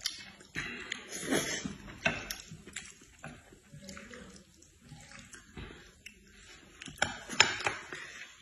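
People eating at a table: wet chewing and slurping of noodles, with a few sharp clicks of chopsticks against dishes, the loudest near the end.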